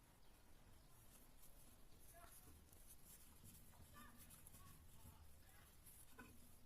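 Near silence: faint room tone with a few scattered light scratches and ticks.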